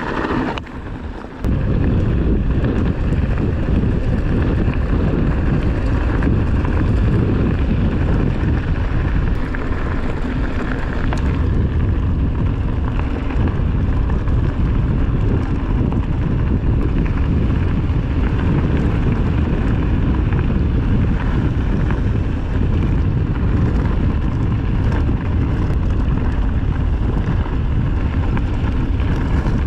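Loud, steady wind rumble on the microphone mixed with a running vehicle's noise, as on a moving vehicle; it comes in suddenly about a second and a half in.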